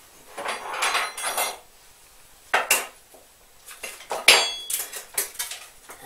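A spoon and kitchen crockery clattering as ingredients are measured out by the spoon into a glass mixing bowl. There is a scraping rustle about half a second in, then a few sharp clinks with a brief ring, the loudest about four seconds in.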